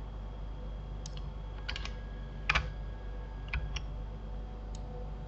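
Computer keyboard keys clicking: a handful of isolated presses, the loudest about two and a half seconds in, over a faint steady electrical hum.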